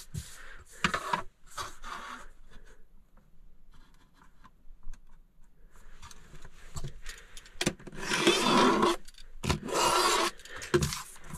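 A utility knife slicing through printed paper along a spirit level held as a straightedge: two scraping cuts of about a second each near the end, with a sharp knock between them. Before the cuts come light knocks and rubbing as the level and paper are set in place on the countertop.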